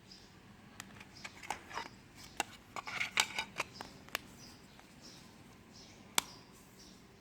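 A run of sharp clicks, about a dozen over three seconds and bunched together near the middle, then one more a couple of seconds later: keypad buttons of a Nokia 105 feature phone being pressed. Faint, evenly repeated high chirps go on behind.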